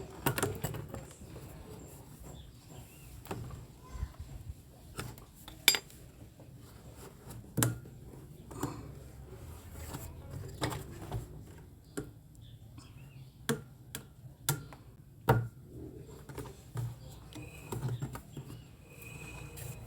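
Irregular clicks and knocks as the parts of a tanquinho, a small top-loading washing machine, are handled and fitted back together.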